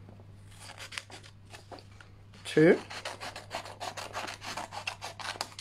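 Scissors cutting through green craft paper: a quick run of short raspy snips as a strip is cut, heaviest through the second half.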